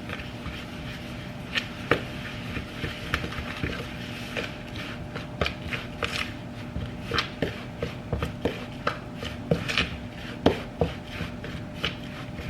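A spoon stirring a thick mix of oats, peanut butter and maple syrup in a bowl: irregular scraping and knocking against the bowl, a few strokes a second.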